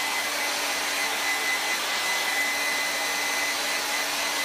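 Handheld hair dryer blowing steadily over freshly stencilled paint to dry it, a constant rush of air with a thin, steady high whine.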